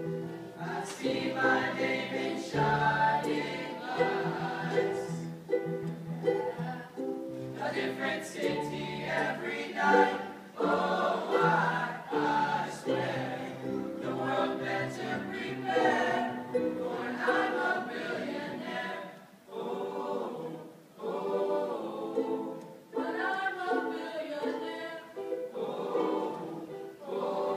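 Young men's vocal ensemble singing a pop song live in harmony, with a low bass line under the voices that drops out about halfway through.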